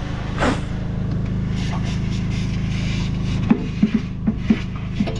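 An engine running steadily, with a run of sharp knocks and clatters starting about three and a half seconds in.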